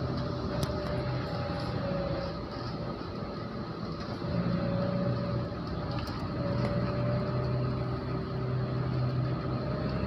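Car driving slowly along a street: steady engine hum and tyre noise, the engine note wavering slightly up and down.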